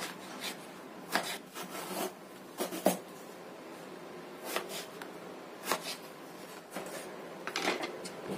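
Kitchen knife cutting peeled eggplant into cubes on a wooden cutting board: irregular sharp knocks of the blade meeting the board, roughly a second apart, with a quick cluster near the end.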